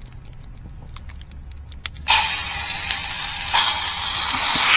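Piri piri chicken going into hot olive oil in a frying pan: a loud sizzle starts suddenly about two seconds in and swells again about a second and a half later. Before that there are only a few light handling clicks.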